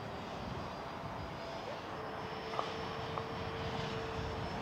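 HSD Super Viper 105 mm electric ducted-fan jet flying overhead: a steady rushing whine of the fan with a thin high tone running through it. Two short clicks come about halfway through.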